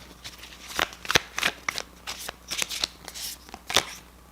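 A deck of tarot cards being shuffled by hand: a run of irregular crisp card snaps and rustles, a few sharper ones about a second in and near the end.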